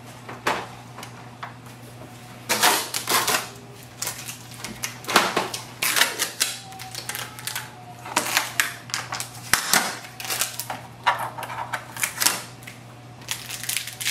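Protective tape being peeled and red packing pieces pulled off a new inkjet printer's plastic casing: irregular clusters of sharp clicks, crackles and plastic knocks, over a faint steady low hum.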